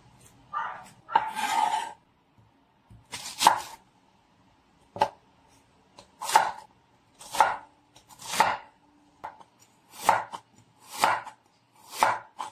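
Chef's knife slicing through onion and then ginger on a wooden cutting board, about eight separate cuts roughly a second apart, with a brief rustle about a second in.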